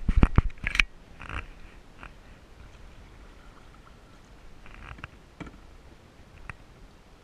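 Several loud knocks and bumps in the first second, then quiet canoe paddling: soft swishes of a paddle stroke in calm water, with a few light clicks.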